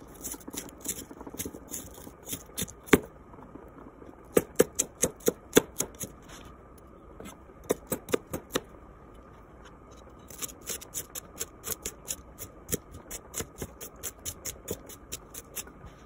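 Chef's knife chopping onion on a cutting board: runs of quick taps, about four a second, broken by short pauses.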